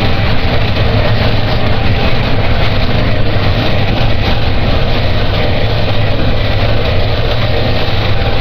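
Harsh noise music: a loud, unchanging wall of distorted noise with a heavy low drone underneath.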